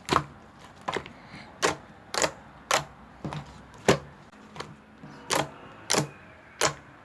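Fluffy slime being squeezed and folded by hand, trapped air bursting in sharp, crisp pops about every half second.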